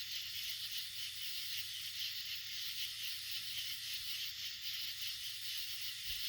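Chorus of night insects such as crickets: a dense, steady high-pitched shrilling.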